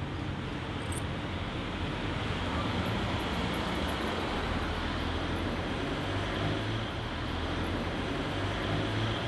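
Steady city traffic noise: a continuous low rumble of passing cars under an even hiss.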